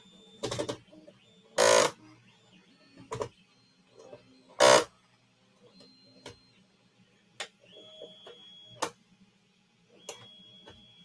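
Small kids' 3D printer at work: its stepper motors whine in short steady tones that start and stop as the print head moves, with several loud short bursts of noise, the loudest about two and five seconds in.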